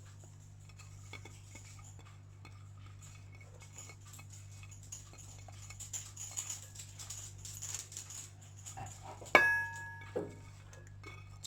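Chopped vegetables being tipped and scraped into a bowl of minced chicken with a spoon: light clicks and rustling, then a sharp knock of the spoon against the bowl about nine seconds in that rings briefly, and a smaller knock just after. A steady low hum runs underneath.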